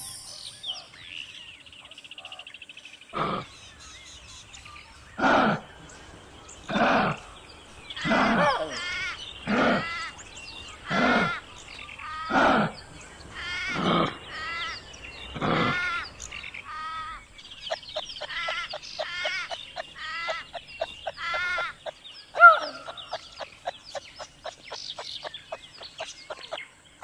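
Kangaroo calls: a series of about ten short throaty calls, roughly one every second and a half, followed by a long run of quick clicking sounds.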